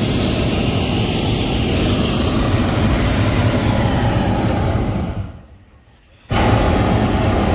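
Hot air balloon's propane burner firing: one long blast that tapers off about five seconds in, a short lull, then a second blast starting abruptly about a second later.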